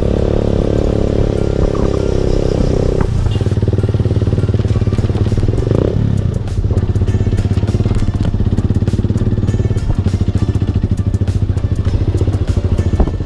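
Sport motorcycle engine running on the move. Its revs drop about three seconds in, and it then runs lower and steady.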